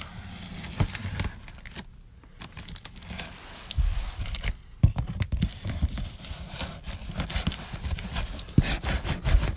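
A cardboard shipping box being handled and opened: tape and packaging tearing and crinkling, with scattered knocks and bumps against it, the sharpest about five seconds in.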